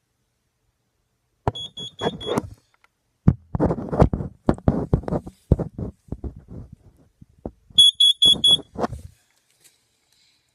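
Carbon monoxide detector sounding its alarm: two groups of four short, high-pitched beeps about six seconds apart, the four-beep pattern of a CO alarm. Between and after the beep groups comes a run of loud clicks and knocks.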